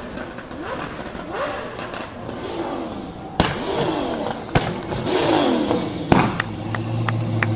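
Car engine blipped repeatedly, the revs rising and falling, with three sharp exhaust backfire bangs in the second half. It then settles to a steady idle with light crackling pops from the exhaust.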